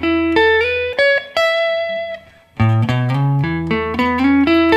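Electric guitar playing an ascending A major lick built on fret slides: single notes climb in steps, some gliding up from fret to fret, and the top note rings out. After a short break about two and a half seconds in, the same run starts again from the low end and climbs.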